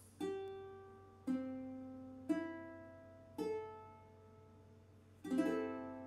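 aNueNue Green Bird UT110 tenor ukulele, South American mahogany, played fingerstyle: four single plucked notes about a second apart, each left ringing, then a chord about five seconds in with its strings sounding one after another in quick succession.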